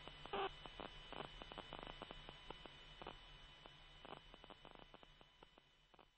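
Faint radio-channel noise: a steady electrical hum with scattered crackling clicks, slowly fading away.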